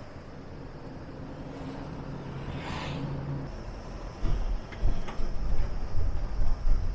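A motor vehicle running with steady low engine and road noise that builds gradually. A brief hiss comes near the middle, then a series of irregular low thumps in the second half.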